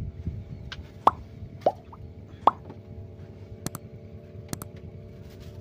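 Sound effect of an on-screen subscribe-button animation: three short cartoon-like pops in quick succession, then two sharp mouse-click sounds.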